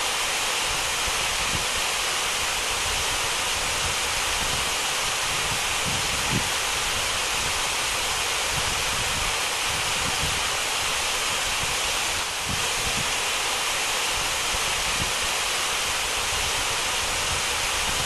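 Santō Ōtaki, a tall narrow waterfall on a rock face, giving a steady, even rush of falling water. An uneven low rumble runs beneath it, with one brief low bump about six seconds in.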